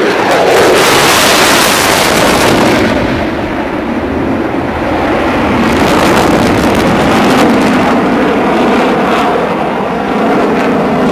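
Loud jet noise from an F-22 Raptor's two turbofan engines as it flies past. The noise swells with a harsher hiss about a second in, and again around six seconds in.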